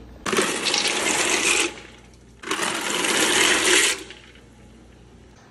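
Dry pasta poured from a cardboard box into a pot of boiling water, rattling out of the box in two pours of about a second and a half each.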